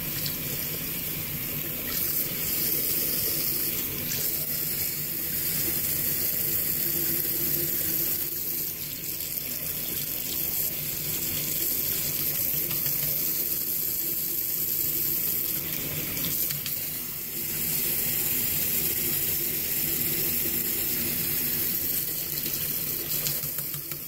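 Water running steadily from a bathroom sink tap, its level dipping briefly twice.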